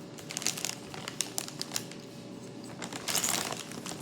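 Plastic corn-snack bag crinkling and rustling as it is handled, with a run of sharp crackly clicks and a louder burst of crinkling about three seconds in.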